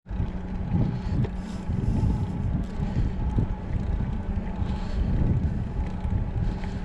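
Wind buffeting the microphone of a handlebar-mounted camera on a moving bicycle, over a steady rumble of tyres on a concrete path. A steady low hum runs under it.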